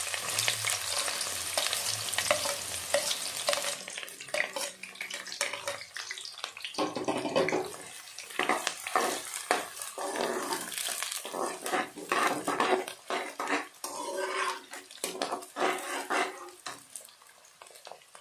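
Chopped onions dropping into hot mustard oil in a kadhai, sizzling strongly for the first few seconds. Then a perforated metal spatula stirs and scrapes them around the pan in quick repeated strokes while they keep frying.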